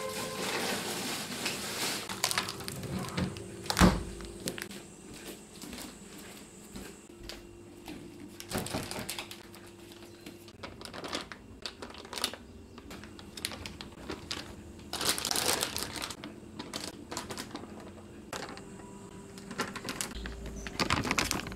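Plastic bags of wheat flour crinkling and rustling as they are handled and poured from, with scattered clicks and light knocks of kitchen things. A sharp knock about four seconds in is the loudest sound, and a faint steady hum runs underneath.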